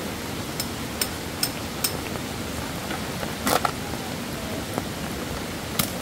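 Tent pegs being hammered into gravel ground for a tarp side wall: runs of sharp knocks about two or three a second, with one heavier knock around the middle and a new run starting near the end, over a steady hiss of rain.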